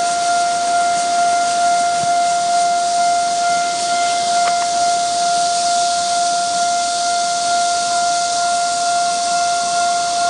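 Railway level-crossing warning alarm sounding a single steady high tone while a Chu-Kuang express passenger train passes, its wheels on the rails making a hiss underneath.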